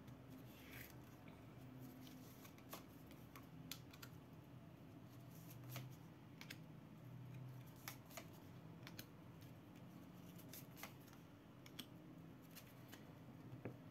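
Near silence: room tone with a faint low hum and scattered soft clicks.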